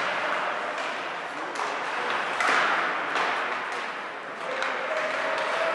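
Ice hockey game arena sound: a steady wash of crowd and rink noise broken by several sharp knocks and pings from sticks, puck and boards.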